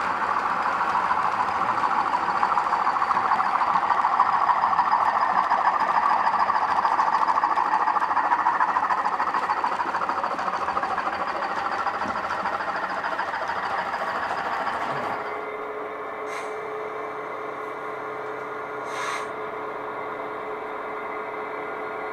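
Model train running on the layout, a steady whirring and rolling rattle that cuts off suddenly about fifteen seconds in. A low steady electrical hum remains, with two faint brief sounds.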